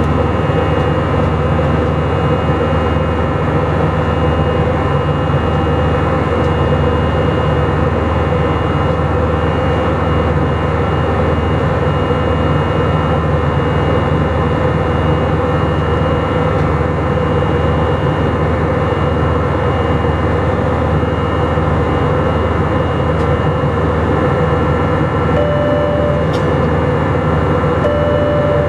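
Steady cabin noise of an Airbus A319 with its jet engines running evenly, a dense roar with a steady hum and whine. Near the end two short identical tones sound a couple of seconds apart.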